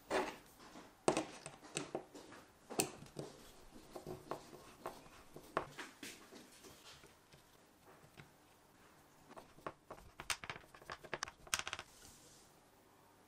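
Hands working small bike parts: irregular clicks and taps of plastic and metal as a pedal-assist sensor magnet disc and screws are set down on a board, with a quick run of clicks near the end.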